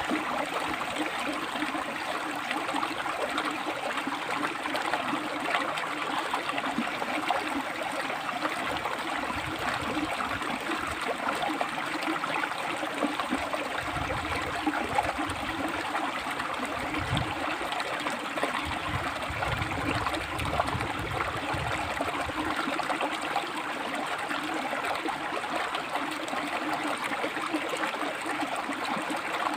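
River water flowing over and between rocks: a steady rushing and gurgling, with brief low rumbles around the middle.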